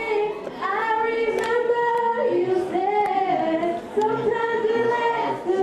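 Teenage girls singing a slow song unaccompanied, with long held notes and gliding pitch.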